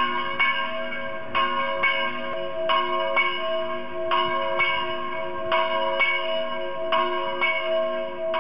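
Church bells ringing: struck in pairs about half a second apart, a pair roughly every second and a half, over the lasting ring of lower bell tones.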